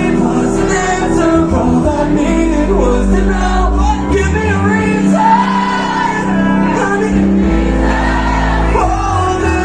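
Live metalcore band playing loud and steady, with sung and shouted vocals over the full band.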